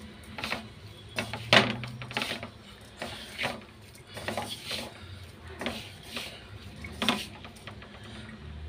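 A hand mixing crumbly wheat-flour dough in a bowl, the fingers scraping and rubbing against the bowl in about a dozen short, irregular strokes.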